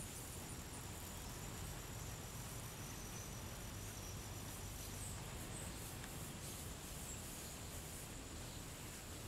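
Faint outdoor background of a steady hiss and low rumble, with high-pitched insect calls: a quick run of chirps in the first second and a thin, steady high whine through the first half.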